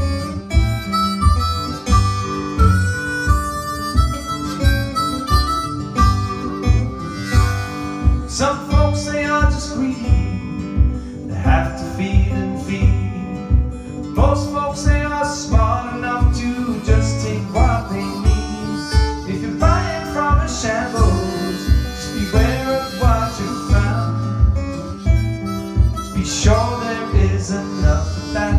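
Live acoustic blues: a harmonica plays the lead over acoustic guitar, with a steady low beat under it and no singing, an instrumental break in the song.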